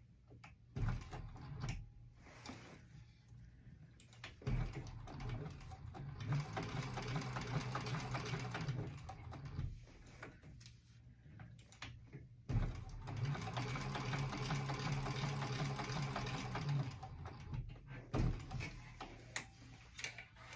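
Industrial sewing machine top-stitching in two long runs of about five seconds each, with a pause between them. A few sharp clicks and knocks come in the quieter gaps.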